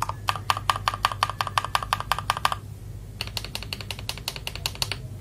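Rapid typing on an FL Esports MK870 mechanical keyboard with AKKO Silver switches, a quick run of sharp clacks in two bursts with a brief pause just after the middle. It is the sound of the keycap plastic being shown off; the reviewer calls the Gateron keycaps loud and crisp.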